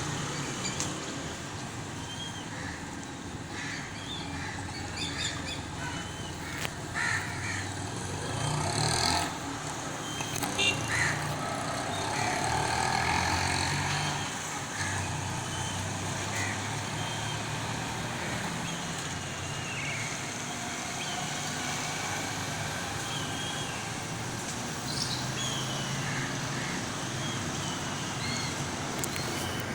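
Birds chirping in many short calls over a low, steady rumble, which grows louder for several seconds near the middle.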